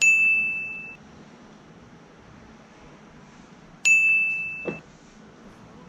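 A high, bell-like ding, sounded twice about four seconds apart. Each rings for about a second and then stops abruptly.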